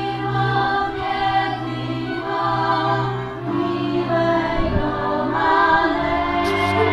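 Live folk music: a string band playing with a group of voices singing together.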